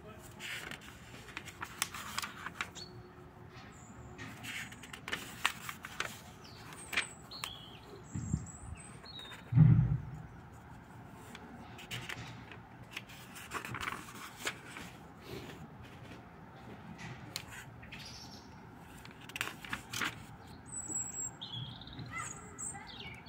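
Thin notebook pages being handled and turned: paper rustling and crackling on and off, with one dull thump a little under ten seconds in.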